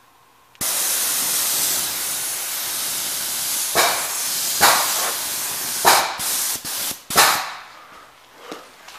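Paint spray gun spraying primer onto steel beams: a loud, steady hiss that starts suddenly about half a second in, swells briefly several times, and stops about seven seconds in.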